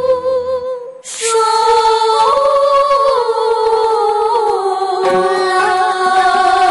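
A song sung by a young girl with musical accompaniment: a held, wavering note dies away about a second in, then a sharp hit opens a new sung phrase of long notes.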